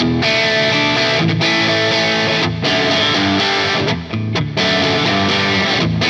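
Soloking MT-1 Telecaster-style electric guitar with Wilkinson Alnico V pickups, played with an overdriven drive tone: distorted chords strummed, breaking off briefly about two and a half seconds in and again around four seconds.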